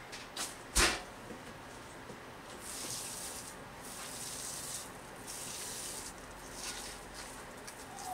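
Hands kneading and pressing moist rice bran in a nukadoko pickling bed: soft, gritty scrunching rustles in several stretches. A sharp knock sounds just under a second in, louder than the rest.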